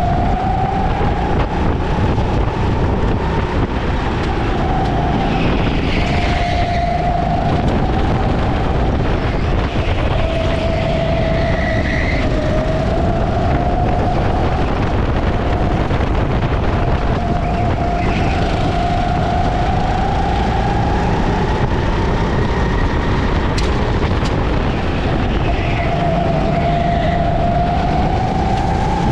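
Racing kart engine heard from on board at speed, its note climbing and dropping again and again as the throttle is worked around the lap, over a steady low rumble of wind and vibration.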